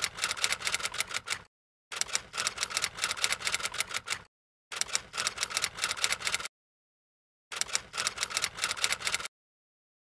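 Typewriter typing sound effect: rapid key strikes in four runs of about two seconds each, with short silent pauses between them.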